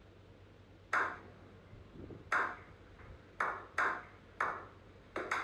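A slow clap by a small group of men: single sharp hand claps with a short echo after each, about a second apart at first, coming quicker and bunching together near the end.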